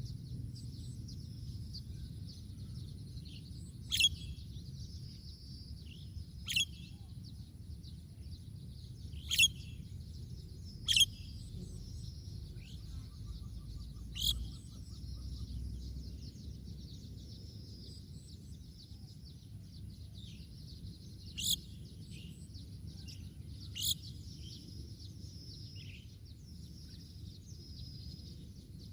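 Birds chirping and twittering continuously, with about seven loud, sharp calls scattered through, over a low wind rumble.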